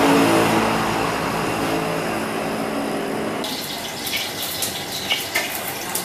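Steady rushing noise, with metal cookware clinking and clattering from about three and a half seconds in.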